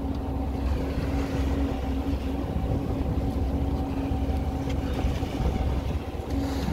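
Tour boat's engine running steadily: a low rumble with a constant hum over it.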